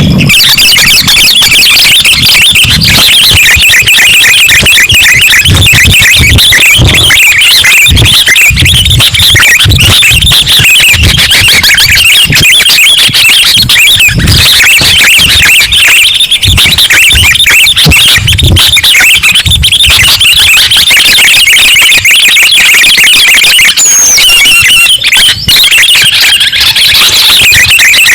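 Sooty-headed bulbuls (kutilang) chattering continuously, many short shrill calls overlapping into a dense, very loud chorus. It is a lure recording played to attract bulbuls.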